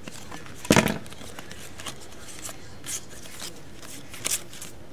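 Glossy football trading cards being slid and flipped through by hand, a few short card-on-card rustles and clicks, with one louder knock a little under a second in.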